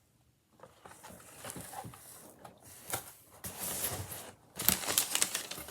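Packaging being handled: soft rustling and a few small knocks, then loud crackly crinkling of plastic near the end.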